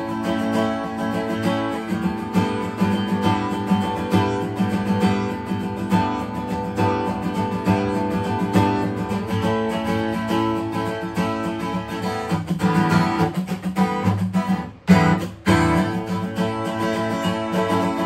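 Acoustic guitar played solo, ringing strummed chords at a steady pace. About twelve seconds in, a run of quicker strokes leads to a sharp accent and two brief stops before the chords resume.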